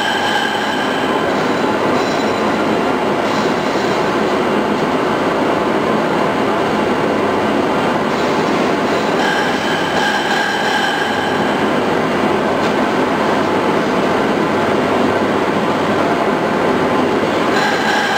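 CNC router running a reciprocating knife through fibreglass insulation: a loud, steady mechanical noise, with a whine that rises in and fades out near the start, around ten seconds in, and near the end.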